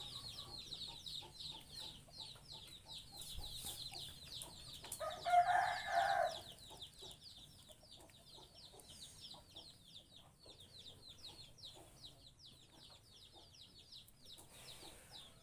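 A rooster crows once about five seconds in, over continuous high, rapid chirping of small birds.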